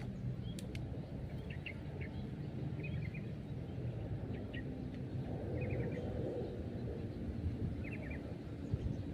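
Outdoor ambience: a small bird repeats a short phrase of three or four quick high chirps every second or two over a steady low rumble.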